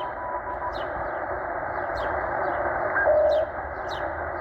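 Shortwave receiver static in upper sideband, a dense hiss cut off above about 2 kHz, with a short steady tone at the start and another about three seconds in, but no clear Morse signal on this frequency. Over it a bird repeats a short high chirp about twice a second.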